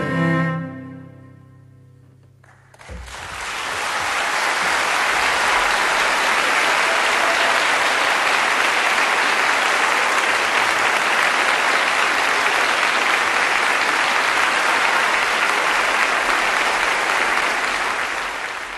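The last notes of a solo cello ring out and die away, and about three seconds in an audience starts applauding and keeps up steady applause.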